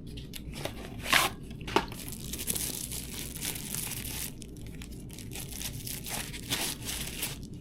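Packaging of a phone case being torn open and crinkled by hand, with a few sharp snaps about a second in, then rustling.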